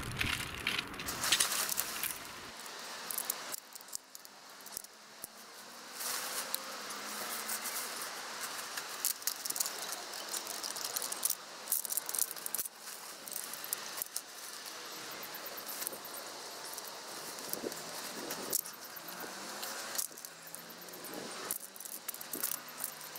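Aluminium tent poles of a Snow Peak Land Lock tent clinking and rattling as they are handled and their sections are fitted together, with many sharp metal clicks, thickest in the first couple of seconds.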